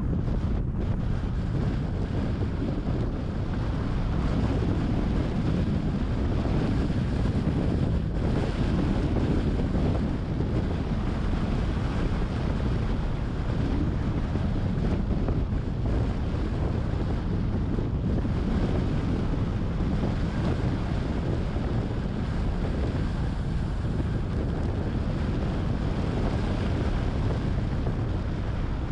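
Steady wind buffeting the microphone of a camera on a moving car, a deep rushing noise with road rumble beneath it.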